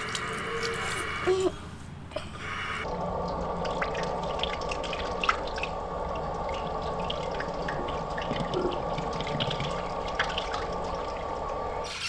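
Water from a drinking fountain's bubbler jet running and splashing onto the steel drain grate, with scattered small drips. About three seconds in, the sound turns slowed down and duller, the footage slowed by 40%.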